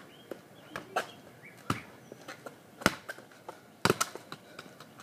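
Five sharp thuds of a soccer ball being kicked and juggled, roughly one a second, the loudest about three seconds in. Birds chirp faintly behind them.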